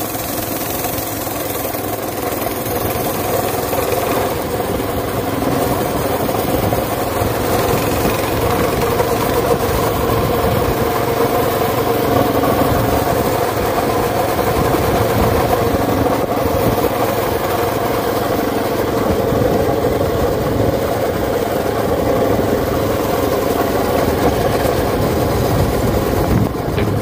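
Small cultivator engine fitted to a 1963 IZh motorcycle, running steadily as the bike rides along.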